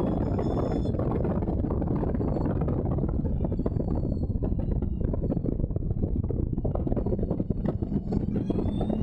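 An Allard J2's Cadillac V8 heard from the open cockpit while racing. The engine note falls away about halfway through as the car slows for a corner, then climbs again near the end under hard acceleration.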